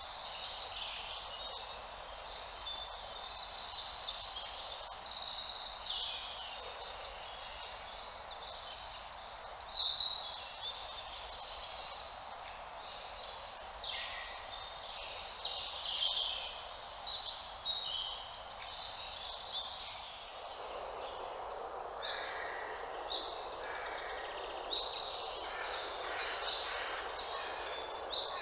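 Several woodland birds singing and calling over one another in quick chirps and trills, over a steady rush of background noise that deepens a little about two-thirds of the way through.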